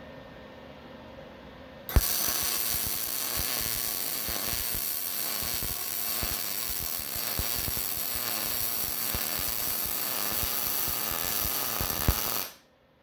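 Welder running a bead on the smoker's steel: loud, steady crackling full of irregular pops that starts abruptly about two seconds in and cuts off sharply about ten seconds later.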